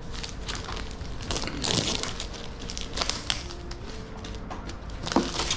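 Crinkling and crackling of packaging being handled, in irregular bursts with the busiest stretch about a second and a half in.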